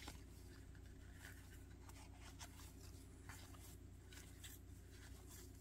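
Faint, soft swishes of glossy baseball cards sliding against each other as a stack is flipped through card by card, at irregular intervals over a steady low hum.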